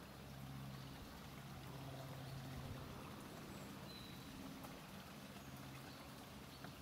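Faint steady outdoor background: an even hiss with a low hum that swells and fades every second or so.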